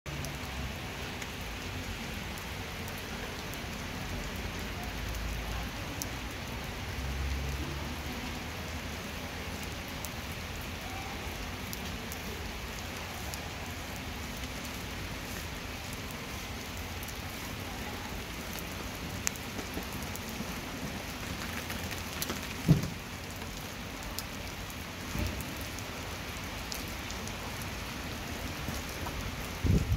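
Steady rain falling on a wet stone-paved street, an even hiss. A few short thuds break through in the last third, the loudest about 23 seconds in.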